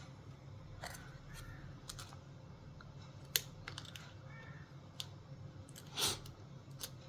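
Scattered light clicks and taps of fingers handling a laptop's replacement keyboard and working its thin flex ribbon cable into the connector, with one sharper click near the middle and a short rustle near the end, over a low steady hum.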